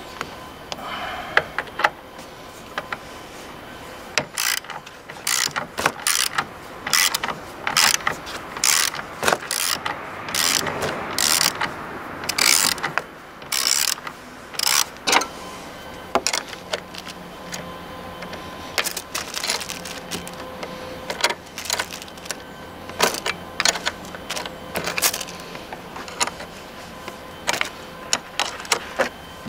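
A socket ratchet wrench clicking as it is worked back and forth on a bolt at the car battery: many sharp ratchet clicks in irregular runs, with pauses between them.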